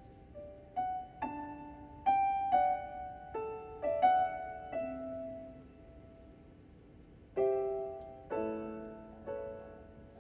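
Slow solo piano music: single notes and soft chords struck one after another, each left to ring and fade. There is a pause of about two seconds in the middle before a fuller chord comes in.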